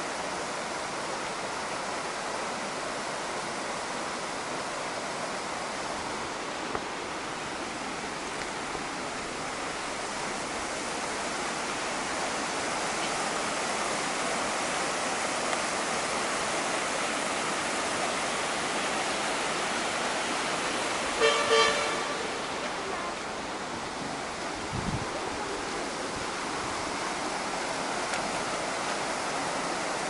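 Mountain river running over rocks and rapids below a bridge: a steady rush of white water. About two-thirds of the way through, a short horn toot sounds once.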